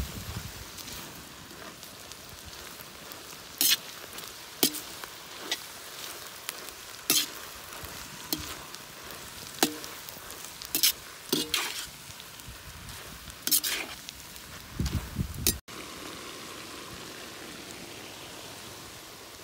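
Shredded cabbage, carrot and sliced capsicum sizzling steadily in a black wok while a metal spatula stirs them, with about a dozen sharp clinks and scrapes of the spatula against the pan. The stirring stops near the end, leaving only the sizzle.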